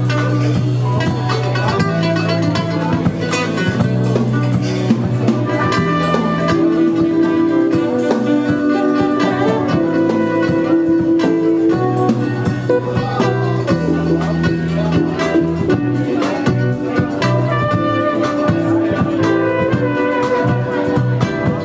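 A live band playing an instrumental piece, with long held low notes that change every few seconds under the melody.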